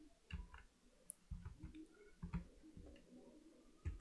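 Faint, scattered clicks and taps of a computer keyboard and mouse being used, about half a dozen separate presses.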